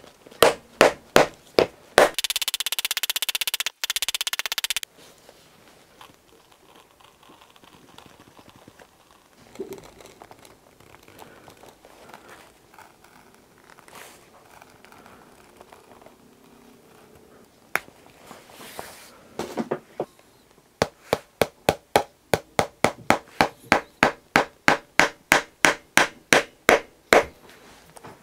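Shoemaker's hammer tapping a Vibram rubber top lift onto a leather heel stack. There are a handful of knocks at the start, then a loud buzzing noise for about three seconds, and a long run of quick, even hammer taps, about four to five a second, in the last third.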